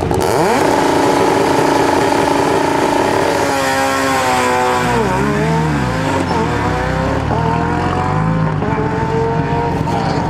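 Peugeot 207 S2000 rally car's engine, a two-litre four-cylinder, held at steady high revs on a stage start line. After about three and a half seconds it launches: the revs dip, then climb again through several quick upshifts as the car accelerates away.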